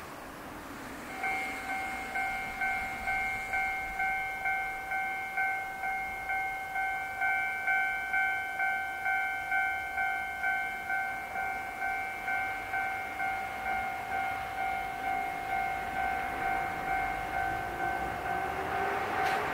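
Electronic railway level-crossing alarm ringing, a steady two-beats-a-second dinging that starts about a second in. In the last few seconds the approaching electric train adds a faint rising whine.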